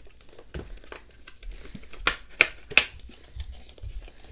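A CD album's packaging being opened and handled by hand: light rustling and small clicks, with three sharp clicks or snaps about a third of a second apart a little after two seconds in.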